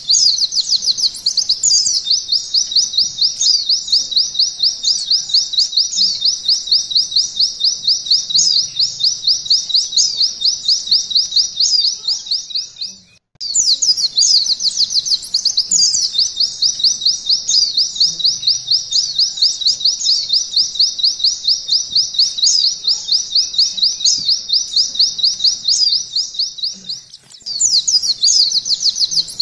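Pleci (white-eye) singing a long, rapid, high-pitched canary-style trill, the 'nembak' shooting song. It breaks off for a moment about halfway through, then runs on with a short dip near the end.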